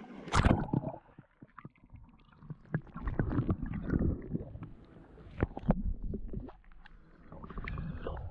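A splash as the microphone plunges into the river about half a second in, then the muffled sound of river water heard from underwater: gurgling, low rumbling and scattered clicks.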